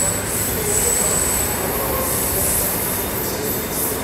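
Diesel locomotive running at a station platform: a steady low engine rumble under a high hiss that swells and fades several times, with a thin high whistle-like tone dying away in the first couple of seconds.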